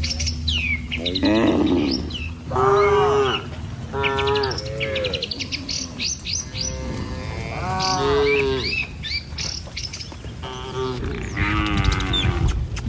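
Cattle mooing, about six calls in turn, each rising and then falling in pitch, with small birds chirping throughout.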